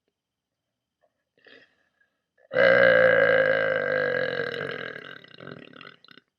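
A woman's long, loud burp, about three and a half seconds of one deep, steady tone. It starts abruptly, then slowly drops in pitch and fades out.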